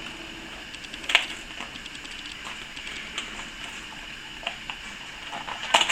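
Scattered light clicks and small knocks of a Remington portable typewriter's ribbon spools and mechanism being handled during a ribbon change, with a sharper click about a second in and a quick cluster of clicks near the end.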